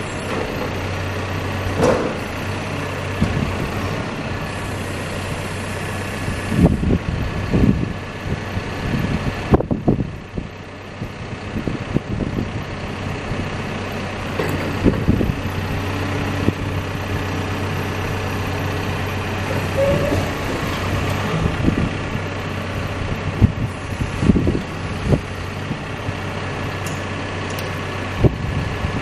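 CAT backhoe's diesel engine running steadily, with scattered clunks and knocks from the machine throughout and a brief dip in level about ten seconds in.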